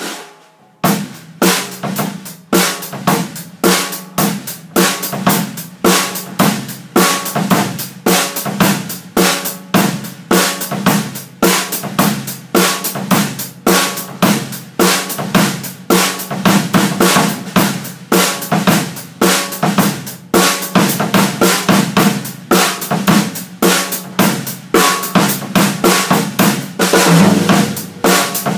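Pearl BX drum kit (20-inch bass drum, 14-inch floor tom, 10-inch tom) with a snare drum, played with sticks in a steady, continuous beat that starts about a second in.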